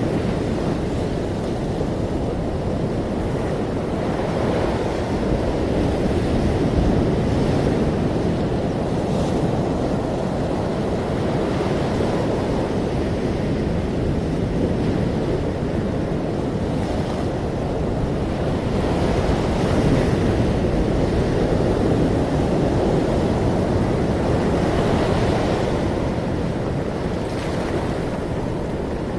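Ocean waves washing on a shore, a continuous deep rush of surf that swells gently and eases off in slow surges.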